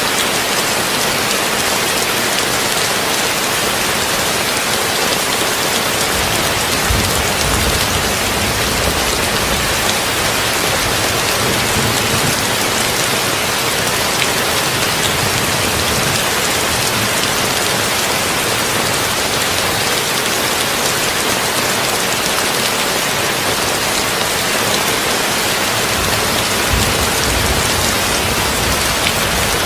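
Heavy rain on a tin roof: a steady, dense patter of drops with no letup. Brief low rumbles swell up about seven seconds in and again near the end.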